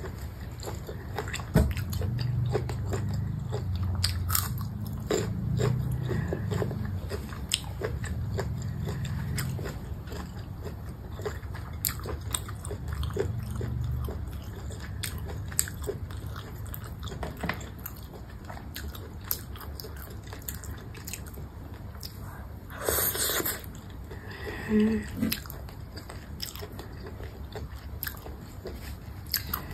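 Close-up mouth sounds of someone chewing grilled baby squid, with many small wet clicks, heaviest in the first half. A brief breathy rush of noise comes a little past the middle.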